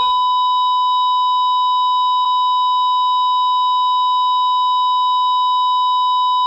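A steady, unbroken electronic beep tone: one high pitch held at an even level, with fainter higher tones above it.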